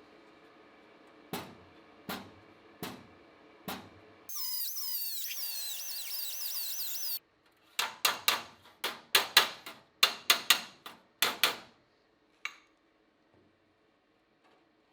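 Bodywork on sheet-metal panels: four sharp knocks, then a power tool whining for about three seconds, stopping abruptly, then a quick run of about a dozen hard hammer-like blows on metal. A faint steady hum runs underneath.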